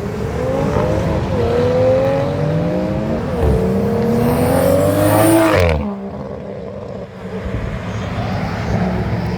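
Toyota Supra accelerating hard through the gears: the engine note climbs, drops twice at upshifts, and climbs again to a loud peak before cutting off suddenly about six seconds in, leaving a lower steady engine hum.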